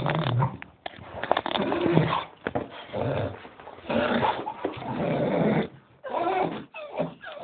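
A Staffordshire Bull Terrier making a run of short vocal noises, some low and throaty, with higher, wavering cries near the end: its eager vocalising while waiting to go for a walk.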